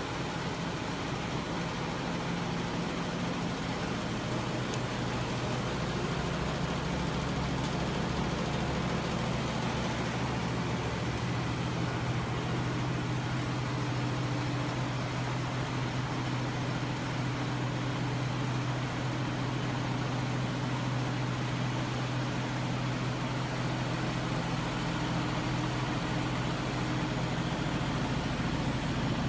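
A homemade magnet-engine rig running steadily: an electric motor turns a crankshaft and flywheel that swing magnet assemblies back and forth and drive 24 V scooter motors used as generators. It makes a continuous mechanical whir over a low hum, and the hum grows a little stronger partway through.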